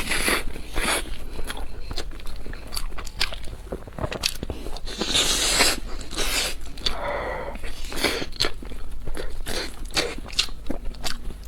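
Close-miked eating sounds: irregular bites, crunching and chewing of food.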